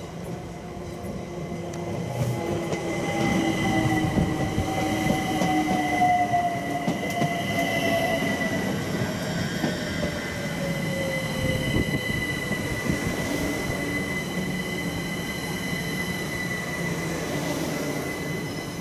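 London Overground Class 378 electric train pulling in and slowing past close by: its traction motors whine downward in pitch as it brakes, over a steady high squeal and a rumble that swells about three seconds in and then holds.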